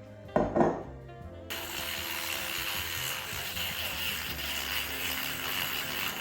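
Matcha with oat milk being frothed: a steady whirring, scraping noise that starts about a second and a half in and runs on, after a short loud knock near the start. Background music plays throughout.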